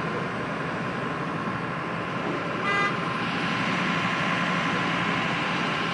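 Fire engine running steadily with a constant whine, and one short vehicle-horn toot a little before halfway.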